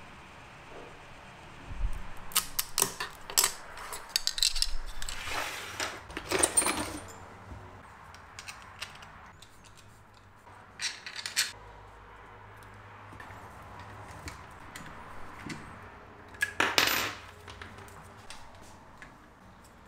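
Clinks, clicks and scraping of a hex key, a metal bolt and nut and hard plastic parts as a 3D-printed mount is fitted to an LED headlight by hand on a wooden table. The clatter comes in a dense cluster from about two to seven seconds in, then in short bursts near eleven and near seventeen seconds.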